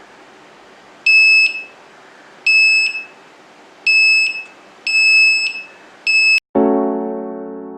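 Buzzer of an Arduino flame-sensor fire alarm beeping a high tone in five short bursts, uneven in length and spacing: the alarm going off. Electric piano music cuts in suddenly near the end.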